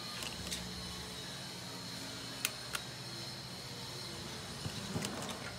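A few light clicks and taps from a plastic pry tool working at the edge of a smartphone's cracked screen, over a steady background hum. Two sharp clicks come about halfway through and a small cluster near the end.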